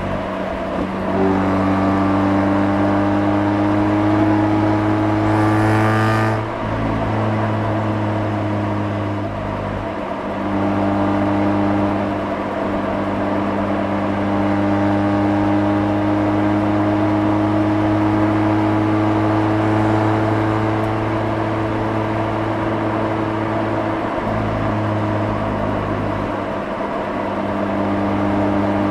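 Mazda RX-8's twin-rotor Wankel rotary engine heard at the exhaust, pulling up through the revs. The note breaks with gear changes about six seconds in and again near ten seconds, then holds a long, steady, slowly rising note.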